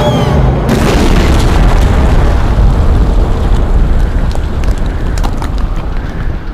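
An explosion sound effect: a deep, rumbling boom that sets in under a second in and rumbles on, with crackles in its second half.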